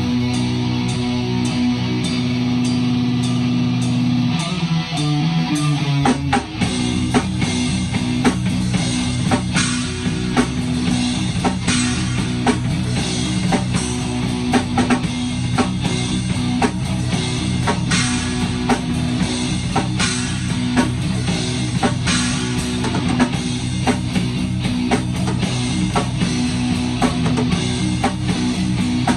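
A rock band playing: electric guitar and bass guitar holding a chord that slides down in pitch, then the drum kit comes in about six seconds in with steady, hard-hit beats under the guitar and bass riff.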